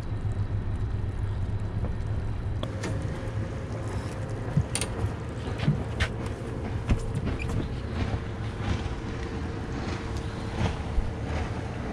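Boat motor running steadily with a low rumble, and a thin steady whine on top from about two and a half seconds in. A few short sharp clicks and knocks come in the middle.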